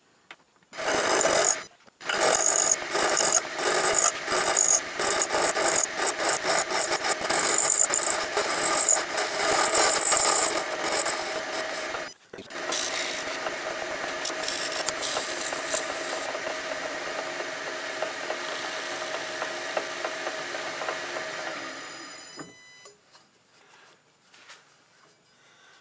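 A hand file rasping against a metal con rod spinning in a lathe, blending its end: rapid, uneven strokes for about ten seconds, then steadier contact over the lathe's running hum. The lathe winds down and stops a few seconds before the end.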